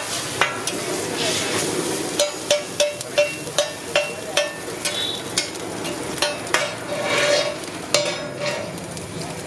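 Egg-coated paratha frying on a large flat griddle, sizzling steadily, while a metal spatula scrapes and taps on the griddle; a quick run of sharp taps, about three a second, comes a couple of seconds in.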